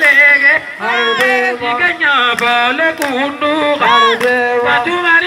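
A man singing into a microphone, amplified, in long phrases whose pitch bends and wavers, with short breaks between them.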